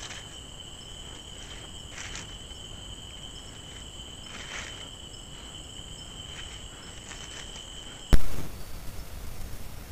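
Night insects calling in a steady high trill at two pitches, with a few faint rustles in the leaf litter. About eight seconds in, a sharp loud knock, and the insect sound cuts off.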